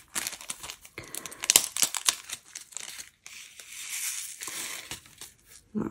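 Small plastic bag of diamond-painting resin drills crinkling as it is handled, with light clicking of drills for about three seconds, then a softer stretch of rustling.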